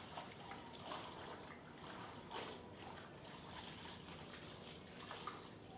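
Faint, scattered small scrapes and clicks of a flat screwdriver prying at a headless nail stuck in a motorcycle tyre.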